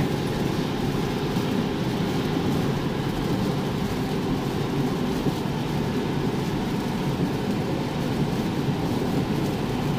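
Steady road noise heard inside a Tesla's cabin at highway speed on a rain-soaked road: tyre hiss on wet pavement mixed with rain on the car.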